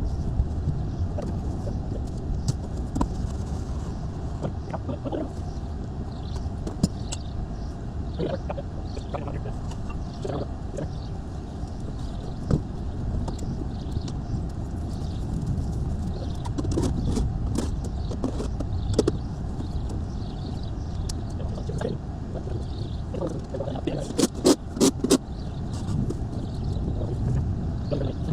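Work-site sounds: a steady low rumble with scattered knocks and clicks, and a quick run of four or five sharp knocks about twenty-four seconds in.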